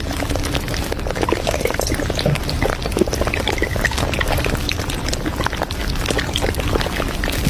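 Café-style background noise: a dense run of small clicks and clatters with liquid-like sounds over a steady low rumble.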